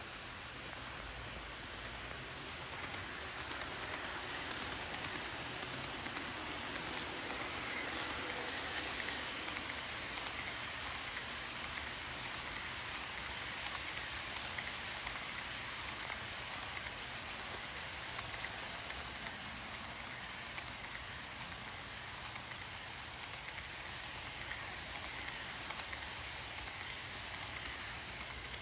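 HO scale model freight train rolling past on the track, led by five Southern Pacific SD40T-2 tunnel motor models with a long string of reefer cars: a steady, even rolling noise of many small wheels on the rails. It is a little louder for the first several seconds, as the locomotives go by.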